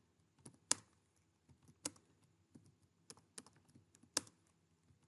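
Computer keyboard keys pressed one at a time in slow, irregular hunt-and-peck typing: about eight separate clicks spread over five seconds, the loudest near the start and near the end.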